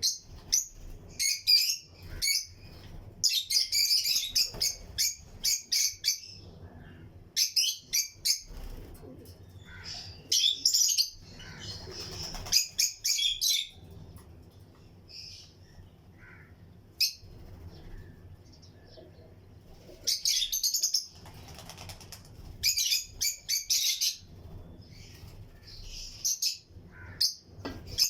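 Lutino lovebirds in a colony cage chirping in bursts of rapid, high-pitched chirps, each burst lasting a second or two, with short lulls between.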